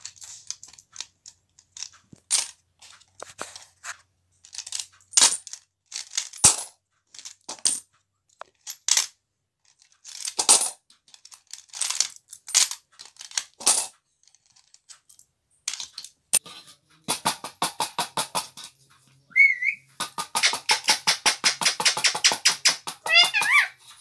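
Coins clinking against metal tins in scattered sharp clinks as a rose-ringed parakeet picks at them with its beak. In the last several seconds the clinks turn into a fast, even run of rattling clicks, with a few short wavering whistles.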